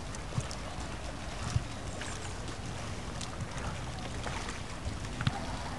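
Steady outdoor lakeside noise of wind rumbling on the microphone, with a few brief soft low thumps.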